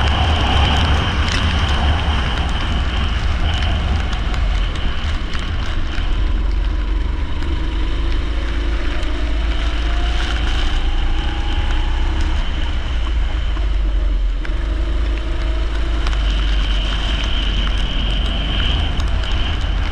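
Leisure kart engine running steadily under load, its pitch slowly climbing a few times as it gathers speed, over a heavy low rumble.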